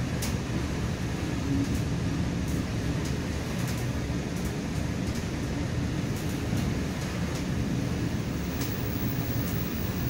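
Commuter train in motion heard from inside a passenger coach: a steady low rumble of wheels on the track, with faint clicks now and then.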